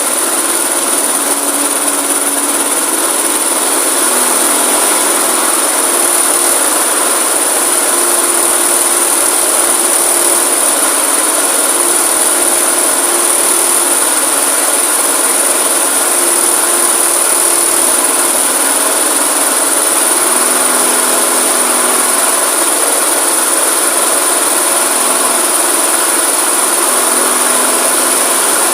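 Masport rotary lawn mower's Briggs & Stratton petrol engine running steadily, with a high-pitched whine over it and a slight rise in level about four seconds in.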